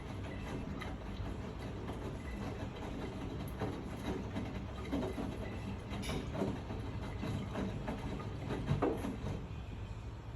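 Miele washing machine running, its drum turning with a steady low rumble and irregular knocks and clatters, the loudest shortly before the end.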